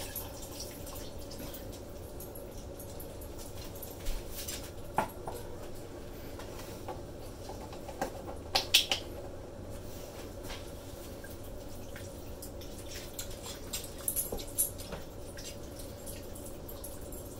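Wooden spoon stirring chunky chili in a pot: scattered soft knocks and scrapes, bunched about eight to nine seconds in and again around fourteen seconds, over a steady faint hum.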